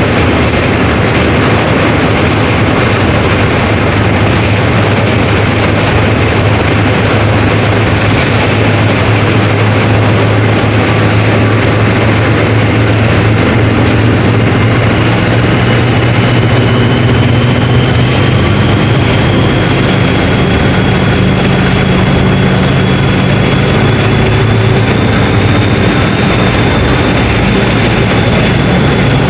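Mercedes-Benz OF 1721 BlueTec 5 bus's diesel engine running, a steady low drone. A faint high whine comes in about halfway through and rises slowly.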